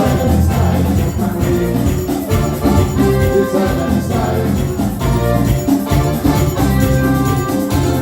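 Upbeat carnival music with a steady beat and bright, ringing melody notes.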